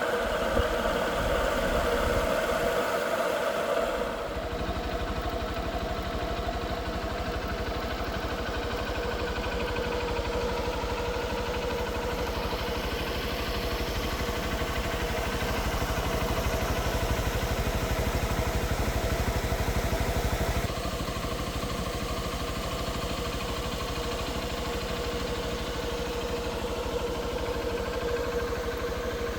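An engine running steadily with a constant hum; its level steps down about four seconds in and again near the twenty-second mark.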